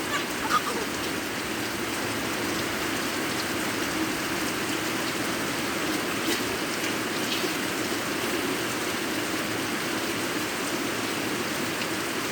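Steady rain falling and splashing, an even hiss that holds without change.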